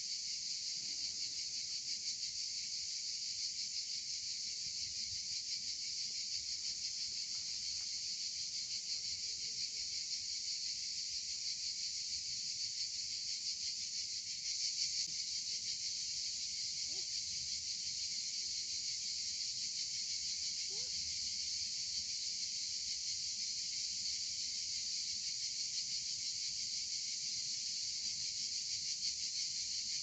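Crickets chirring in a dense, unbroken high-pitched chorus, slightly louder from about halfway through.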